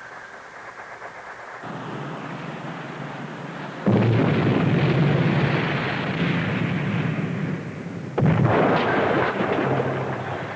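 Depth-charge explosion sound effects: two heavy blasts about four seconds apart, each with a long rumbling decay, after a low rumble building up.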